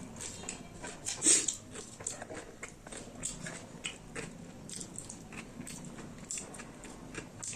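Close-miked chewing and biting, with wet mouth clicks and smacks. One louder bite comes about a second in.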